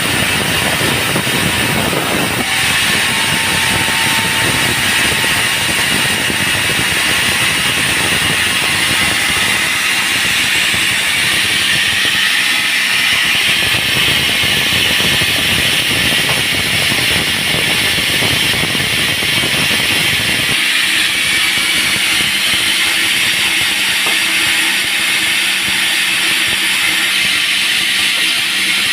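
Band sawmill running and cutting a dry teak log: a loud, steady machine noise with a hiss-like upper band. The deeper rumble drops away about twenty seconds in.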